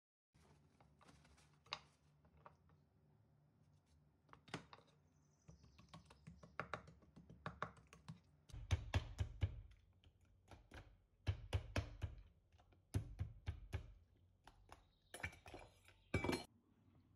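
A fork and a knife tapping and clicking on a bamboo cutting board as raw chicken is pierced and scored: irregular sharp taps, joined by heavier thuds from about halfway through.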